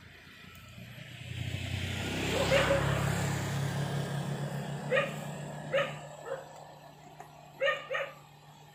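A vehicle passes, its noise and low engine hum swelling to a peak a couple of seconds in and then fading. A dog then barks about five times in short single barks, the last two close together near the end.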